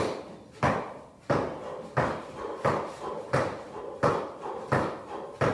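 Feet landing on a hard floor during high-knee raises: a steady beat of thuds, about three every two seconds, each with a short echo off the room's bare walls.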